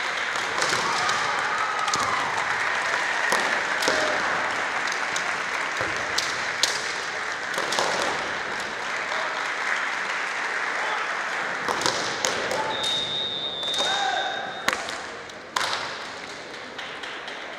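Kendo hall: spectators' applause mixed with sharp cracks of bamboo shinai strikes and foot stamps, and short kiai shouts from the fencers. A high steady tone sounds for about a second and a half past the middle, and the applause fades near the end.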